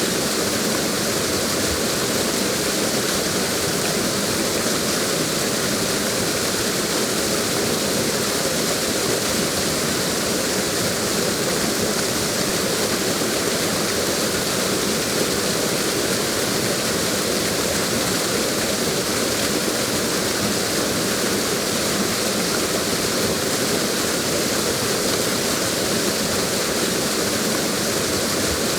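Waterfall: a steady, unbroken rush of falling water that never changes in level.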